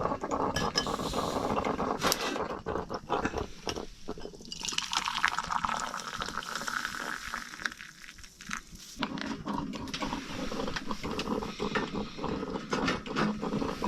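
Dishes and cutlery clinking and clattering, with splashing water.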